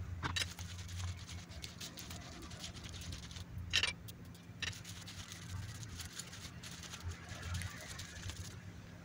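Hands rolling damp blanched grape leaves around filling, a faint soft patter and rustle of fingers on the leaves, with a small sharp click about four seconds in and another shortly after. A low steady hum runs underneath.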